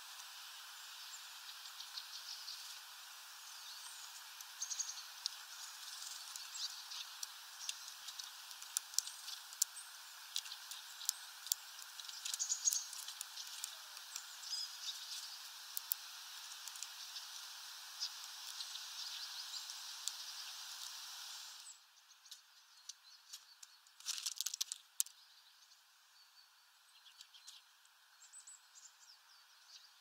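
Faint sounds of small birds at a seed feeder: short high chirps and scattered light ticks and taps of birds landing and pecking at sunflower seeds on the tray. A steady background hiss stops suddenly about two-thirds of the way through, and a brief rustle follows a couple of seconds later.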